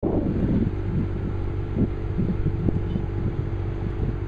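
A steady low drone of an idling engine, with irregular low bumps from wind or handling on the microphone.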